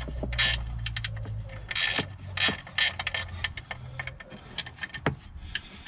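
Ratchet spanner clicking as it winds off a small 10 mm nut, a quick irregular run of clicks. A low steady hum in the background stops about four seconds in.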